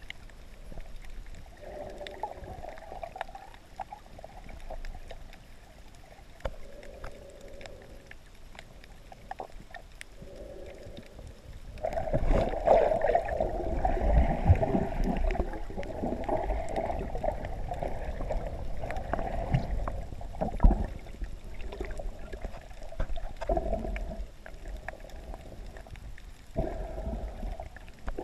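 Muffled underwater water noise heard through a GoPro's waterproof housing as the snorkeler swims: sloshing and rushing water in swells of a second or two, with scattered sharp clicks. It grows louder and steadier about twelve seconds in.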